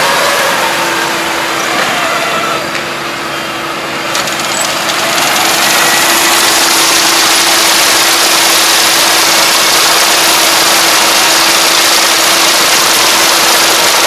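Iseki Japan 4075 rice combine harvester running under load as it cuts standing rice: loud, steady engine and machinery noise with a steady hum that comes in about half a second in. The level dips briefly a few seconds in, then holds.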